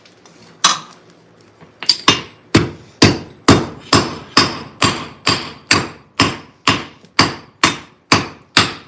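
Blacksmith's hammer striking a hot nail blank set in a heading tool, forming the rose head. One blow, a short pause, then a steady run of ringing metal-on-metal blows at about two a second.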